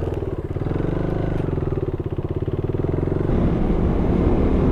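KTM 390 Duke's single-cylinder engine pulling away and accelerating, with a fast, even beat of firing pulses. About three seconds in the sound turns rougher and a little louder.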